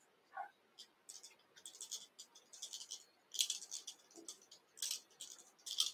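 Faint, scratchy rustling in short irregular bursts from fingers working a hen hackle feather and tying thread around a hook in a fly-tying vise.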